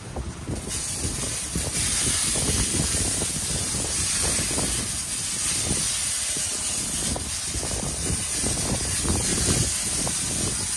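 Soft-wash wand spraying a light coat of siding treatment at low pressure onto house siding: a steady hiss of spray that cuts off near the end.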